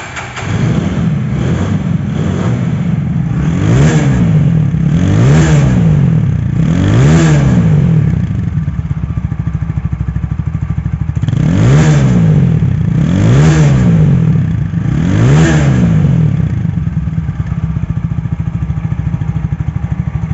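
A TVS Apache RTR 160 4V's single-cylinder engine, heard close to its muffler, idling steadily and blipped in two sets of three quick revs, each rising and falling back to idle. It runs clean and even, which the seller calls showroom-condition sound with no problems.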